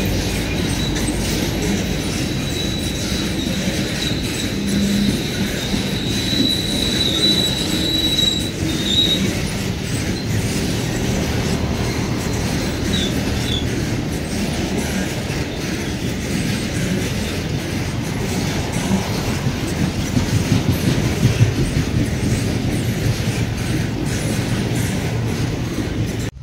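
Freight train wagons loaded with shipping containers rolling past at close range: a steady rumble of steel wheels on the rails, with a thin, high wheel squeal held for about the first nine seconds.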